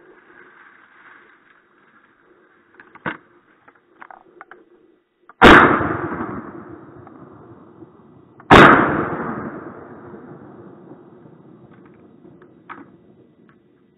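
Two shotgun shots about three seconds apart, each sudden and very loud with a long echoing tail that fades over a couple of seconds. A smaller sharp knock comes a couple of seconds before the first shot.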